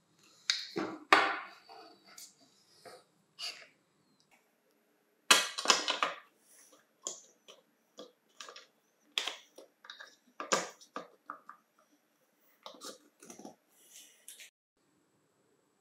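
Scattered clicks, taps and rattles of hard plastic parts being handled while a Hitachi G18DSL cordless angle grinder is taken apart: its slide switch and the switch and wiring inside the opened housing.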